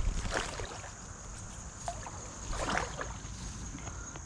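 A small smallmouth bass splashing at the water's surface as it is reeled in on light tackle, in two splashy bursts about two and a half seconds apart, over the steady rush of a creek.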